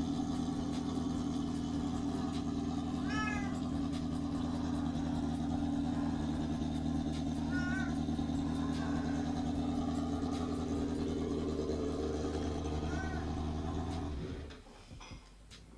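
Suzuki Bandit 600 inline-four engine, fitted in a Hyosung Comet 250 frame, running steadily; the sound cuts off about fourteen seconds in. A cat meows three times over it.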